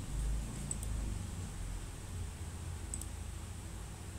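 Two soft computer-mouse clicks, one under a second in and one near three seconds, over a low rumble of room noise and a faint steady high whine from the recording setup.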